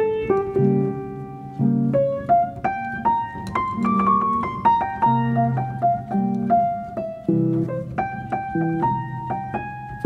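Background piano music: single notes and chords struck in an unhurried melody.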